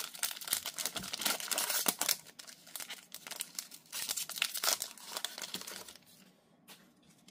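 A Marvel Platinum trading-card pack's wrapper being torn open and crinkled in the hands. The crinkling comes in two spells, for about the first two seconds and again around four seconds in, then dies away near the end.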